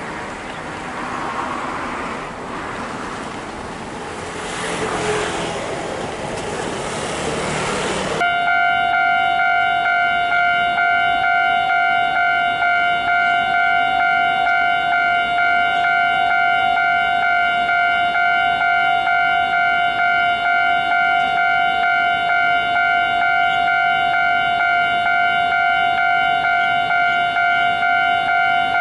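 Railway level-crossing warning signal starting abruptly about eight seconds in and then sounding steadily: a loud electronic ringing tone that warns of an approaching train. Before it, a steady haze of traffic noise.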